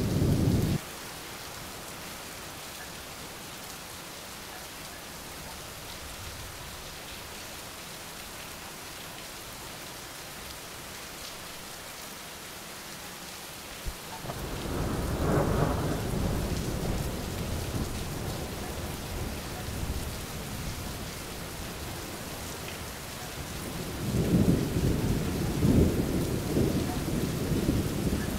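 Thunder over steady rain. A low rumble stops abruptly about a second in, leaving the even hiss of rain. About halfway through a sharp crack sets off a long rolling rumble that slowly fades, and another rumble builds near the end.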